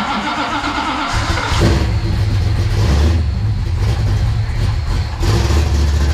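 Dodge 440 big-block V8 being broken in, cranked on the starter and catching about a second in, then running through short pipes and two mufflers with the revs rising and dipping.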